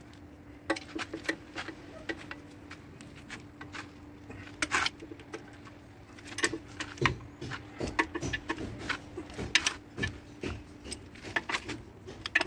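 Socket ratchet wrench clicking and steel tools clinking on an old Scania diesel engine block, in irregular runs of sharp clicks that get busier about halfway through.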